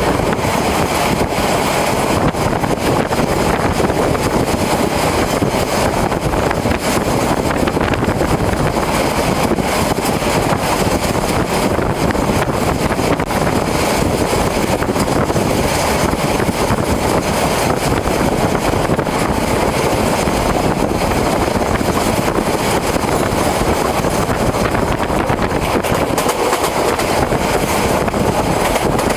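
Steady running noise of a train moving at speed, heard from inside the carriage: wheels on rails and rushing air, without a break.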